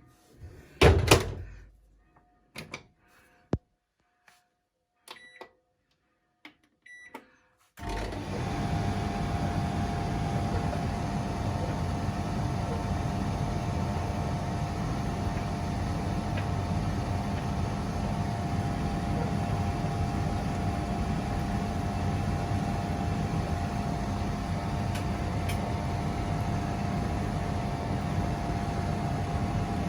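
A few short knocks and clicks, then from about eight seconds in a laundry appliance running with a steady mechanical hum and a constant whine.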